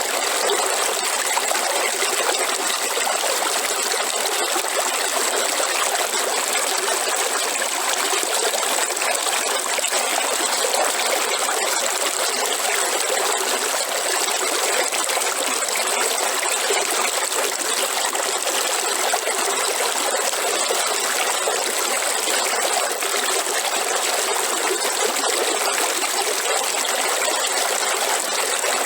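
River water flowing and trickling in a steady rush.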